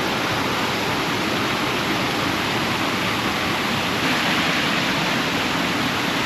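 Steady rush of a waterfall and its flowing water.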